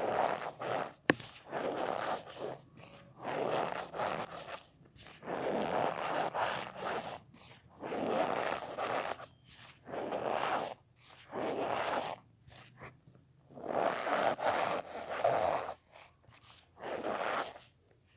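Cornstarch powder being squeezed and pressed, squeaking and crunching in repeated strokes of about a second each with short pauses between them. There is one sharp click about a second in.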